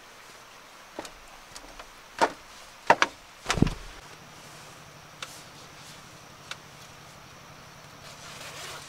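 A handful of sharp knocks and clacks, two close together about three seconds in and the loudest just after, followed by a faint steady low hum.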